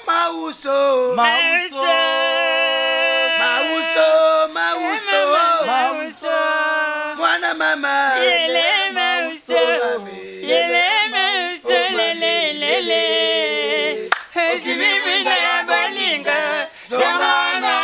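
Voices singing unaccompanied: long held notes alternating with shorter sung phrases that bend in pitch.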